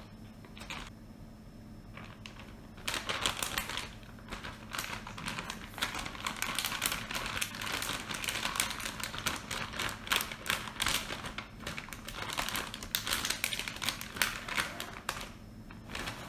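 Rapid, irregular clicking and crackling that starts about three seconds in and runs for roughly twelve seconds before stopping near the end.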